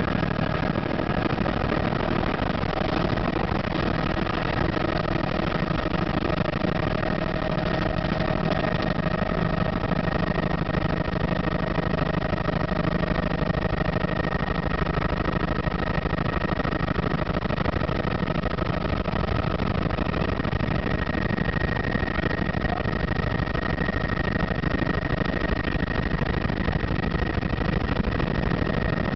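Helicopter engine and rotor heard from inside the cabin during lift-off and climb: a steady drone with a constant high whine over it.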